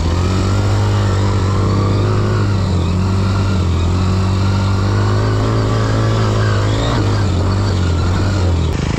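Dirt bike engine running at a steady, held throttle, easing off just before the end.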